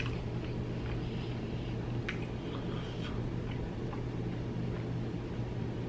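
A man chewing food with his mouth closed: a few faint, wet mouth clicks over a steady low hum.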